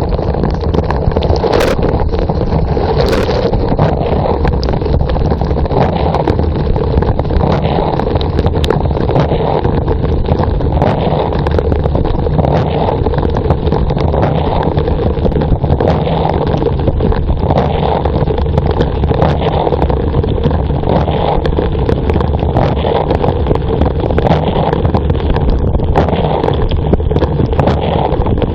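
A running dishwasher heard from inside the tub: the wash pump running and water spraying and splashing, a steady, dense rush with a slight pulsing and a few sharp ticks in the first few seconds.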